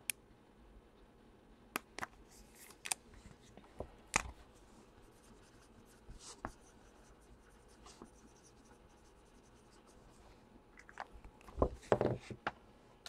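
Sporadic soft crinkles and clicks of hands handling trading-card packs and their plastic wrapping, with a denser run of handling noises near the end.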